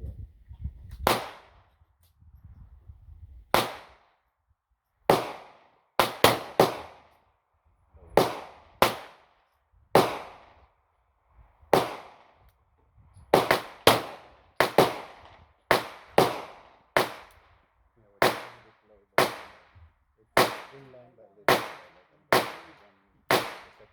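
A string of about two dozen gunshots at an outdoor range, fired irregularly, some in quick runs of two or three shots under half a second apart, each crack trailing a brief echo.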